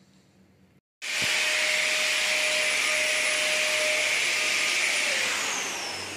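Motorised sanitiser sprayer running with a loud, steady hiss and a faint motor whine. It starts abruptly about a second in; near the end its pitch drops and it fades.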